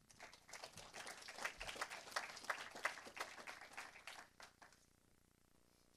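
Congregation applauding, a quick patter of many claps that thins out and stops near the end.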